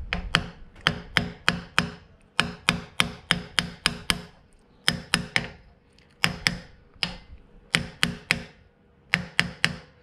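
Hammer tapping a large steel socket that drives a new pinion seal into a Toyota Land Cruiser 40-series differential housing. Runs of quick metallic taps, about three or four a second, each with a short ring, broken by brief pauses.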